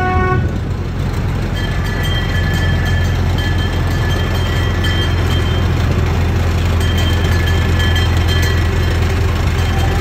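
Miniature amusement-park train running along its track, heard from on board as a steady low drone with rail noise. The last of a horn toot cuts off just at the start, and a thin high whine comes and goes after that.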